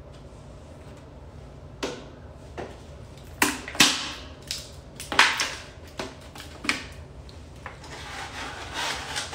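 Skincare product packaging being handled: a series of irregular short rustles and clicks, loudest in the middle.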